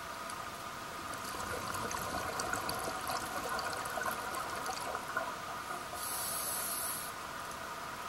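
Underwater sound through a camera housing: a steady hiss and hum, a diver's exhaled breath bubbling and crackling for a few seconds, then a brief hiss from the scuba regulator about six seconds in.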